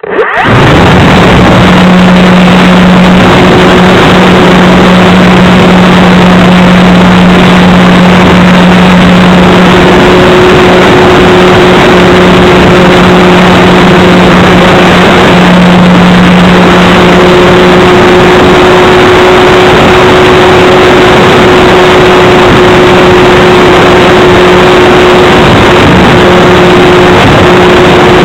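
Electric motor and propeller of a small RC plane heard through its onboard camera's microphone: a loud, steady drone with heavy wind noise. It cuts in abruptly at the start and holds nearly the same pitch, with small shifts in throttle.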